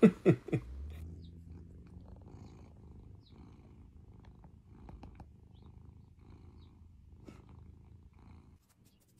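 Domestic cat purring steadily; the purring stops shortly before the end. Three short, loud sounds come at the very start.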